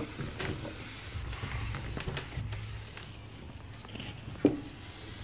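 Board duster wiping a whiteboard in faint rubbing strokes, with one sharper knock about four and a half seconds in.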